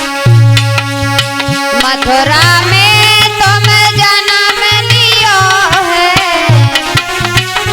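Indian devotional aarti music: a steady hand-drum beat under a melodic lead instrument playing a sliding, ornamented tune.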